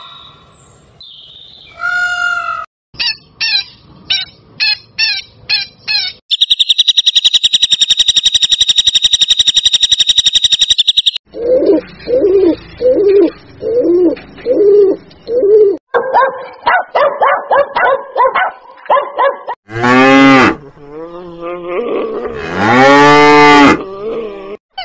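A run of different animal calls, one after another. Short sharp calls come first, then a steady high buzzing tone for about five seconds, then low repeated calls, then quick chattering calls. Near the end come two loud moos from dairy cattle.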